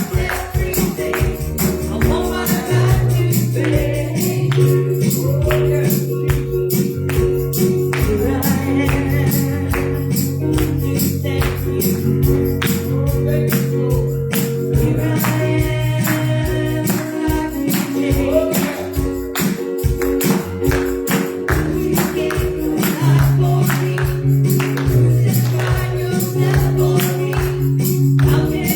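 Live worship music: a band playing with a steady tambourine beat over sustained bass and keyboard chords, with faint singing.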